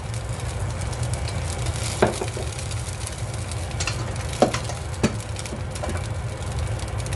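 Oil sizzling in a hot wok just after it is poured in. Three sharp clicks rise above the steady sizzle, at about two seconds in and twice more a little before the end.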